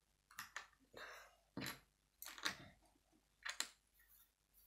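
Plastic Lego bricks clicking and clacking as pieces are picked up and pressed together, a string of faint, irregular clicks.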